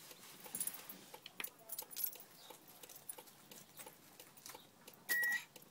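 A bunch of keys jangling and clicking as they are fumbled into an ignition. Near the end comes one short, steady electronic beep as the key goes in.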